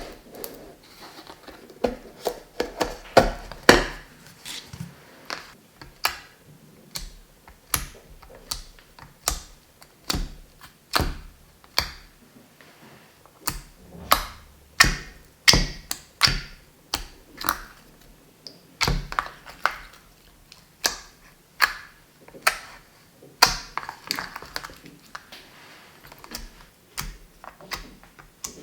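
Homemade slime being squeezed and poked by hand, giving irregular sticky clicks, pops and soft thumps, about one or two a second and sometimes in quick clusters.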